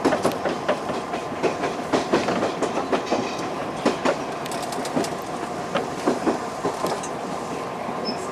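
Odakyu electric commuter train's wheels clattering over the points and crossings as it runs into a station: irregular sharp clicks and knocks, several a second, over the steady rumble of the train.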